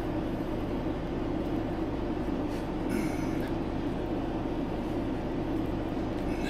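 Steady low machine hum and drone, unbroken throughout, with a few faint light taps about halfway through.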